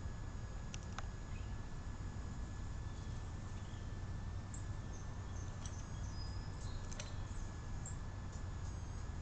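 Faint, short, high chirps of small birds and a few sharp clicks, over a steady low rumble and a thin steady high tone.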